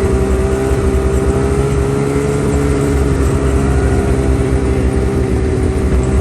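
An engine running steadily at a constant pitch, a continuous hum with a low rumble.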